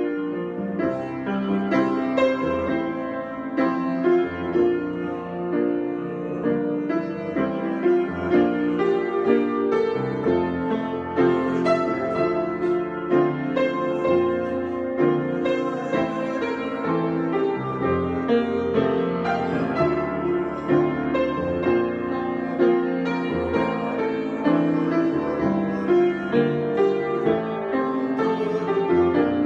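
Piano improvisation: a continuous flow of notes and chords, with fresh notes struck every fraction of a second.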